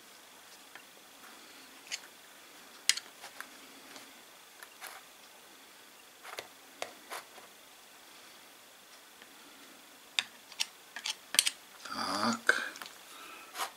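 Light clicks and taps of a small metal tool against the plastic gear housing of a cordless mini chainsaw as petroleum jelly is worked onto its gears. The clicks come sparsely at first, then more densely near the end, with a short rustling scrape just before the end.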